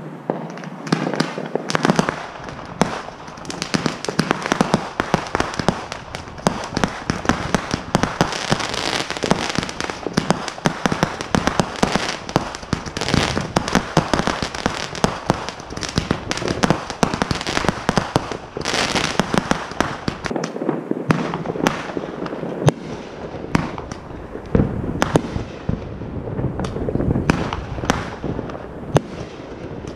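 Fireworks going off in rapid succession: a dense barrage of bangs and crackling, thinning near the end into separate sharp bangs.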